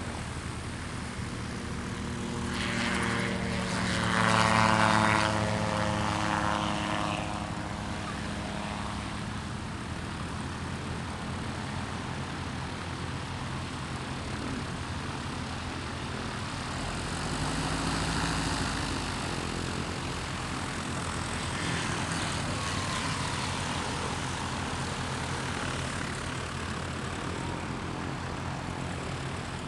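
Light single-engine propeller aircraft taking off one after another: one passes close and loud about four seconds in and fades away, and a second engine swells up around eighteen seconds, with a steady engine drone between.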